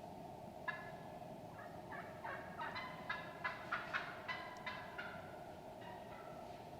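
Wild turkey calling: a run of about a dozen short, pitched notes, quickening and loudest around the middle, then trailing off about five seconds in, over a steady background hiss.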